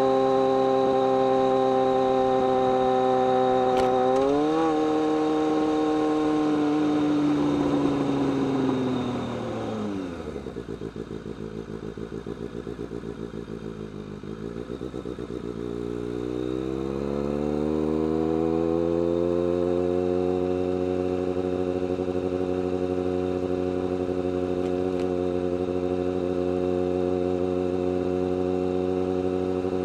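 BMW K1200R's inline-four engine running at steady revs, with a quick blip of the throttle about four seconds in. The revs then fall away as the bike slows and stay low for several seconds before climbing again and settling into a steady cruise.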